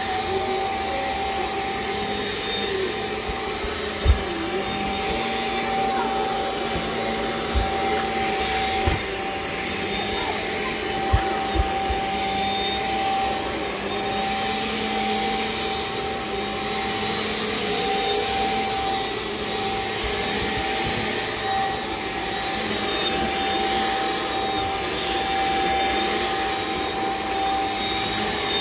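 Cordless stick vacuum with a motorised carpet brush head running steadily as it is pushed over carpet: a steady rushing drone with a constant high whine, and a few short low thumps.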